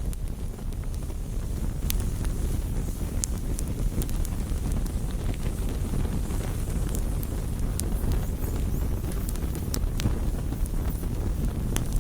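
Fire burning: a steady low rumble with scattered sharp crackles and pops.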